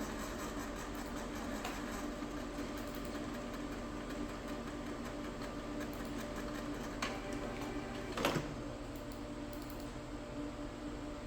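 Canon MX366 inkjet printer running through a photo print, a steady mechanical whirring with two short clicks later on.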